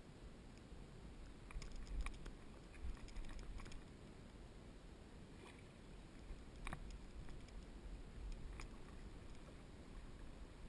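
Kayak being poled through shallow water with a push pole: a faint low rumble with scattered light clicks and knocks from the pole, a cluster of them about two to four seconds in and a sharper single knock near the middle.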